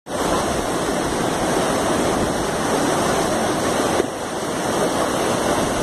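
River water rushing steadily, a loud even wash of noise with a brief dip about four seconds in.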